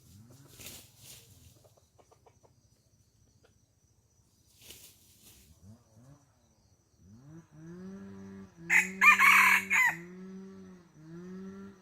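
Chickens: a run of low, repeated clucking calls from hens starts about seven seconds in, and a rooster crows loudly over it about nine seconds in.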